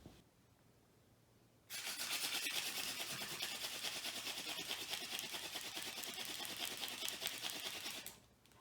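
Hand drill fire by friction: a Tall Ironweed spindle spun fast between the palms, grinding into a white pine fireboard with a rapid, dry rasping. It starts suddenly about two seconds in and stops abruptly near the end, when the drilling ends to leave an ember.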